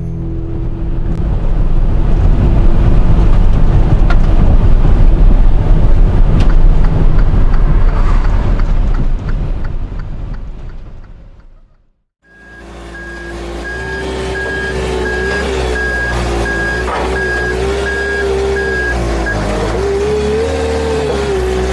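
Loud, steady rushing noise with a deep rumble that fades out just past halfway. Then a vehicle's reversing alarm beeps about twice a second over a running engine whose pitch wavers, and the beeping stops near the end.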